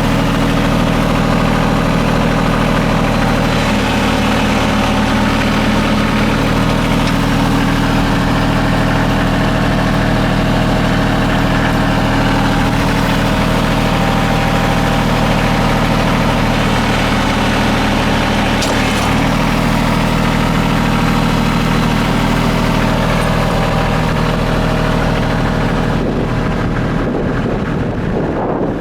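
Bobcat CT225 compact tractor engine running steadily at a constant speed, a steady drone.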